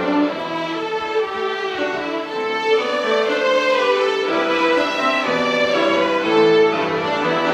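A violin ensemble of children and adults playing a melody together in held notes, with piano accompaniment.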